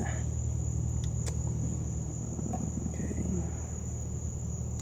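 Crickets trilling in one steady high tone over a steady low hum, with a few faint clicks.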